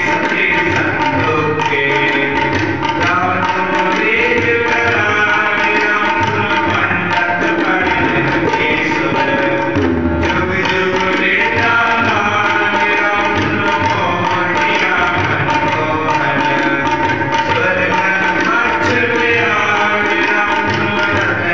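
Sikh kirtan: a harmonium holding sustained chords under a tabla playing a steady rhythmic accompaniment, with a voice singing devotional phrases over them in places.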